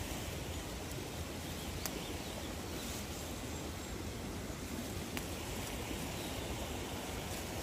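Steady rushing outdoor noise with a low rumble, and a few faint clicks.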